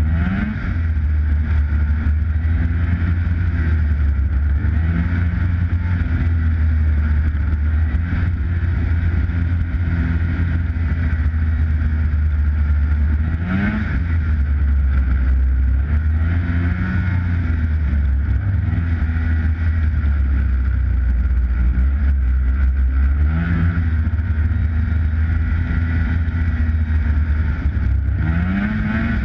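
Snowmobile engine running close up while riding a trail, its pitch rising and falling with the throttle and climbing sharply several times as it is opened up.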